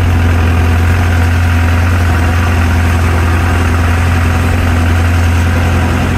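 Tractor engine idling steadily, heard from inside the cab.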